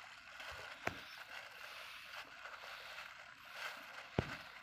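Clear plastic bag rustling faintly as a hand works the dough bait inside it, with two short sharp clicks, one about a second in and one near the end.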